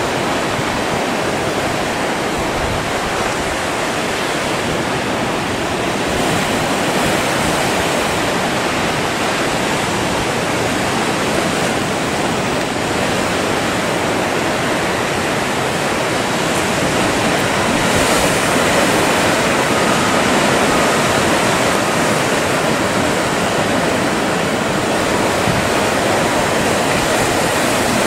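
Ocean swell breaking and washing in a harbour channel: a steady rush of surf, a little louder from about two-thirds of the way through.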